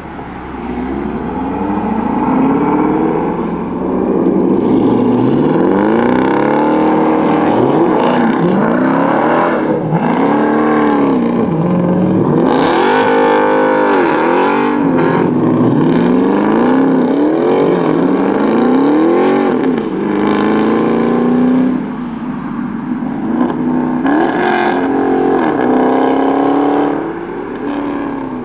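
Car engine revved hard over and over, its pitch rising and falling every second or two, with a short drop in level a little before the end.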